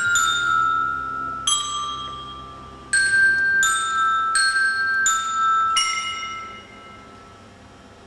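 Marching-band bell lyre (lyre glockenspiel) struck note by note: a slow phrase of about seven bright, ringing metal-bar notes, each left to ring on. The last note dies away about seven seconds in.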